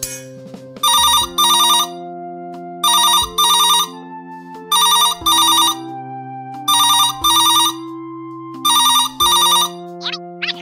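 Telephone ringing in the classic double ring: five ring-ring pairs, about two seconds apart. Light background music plays under it.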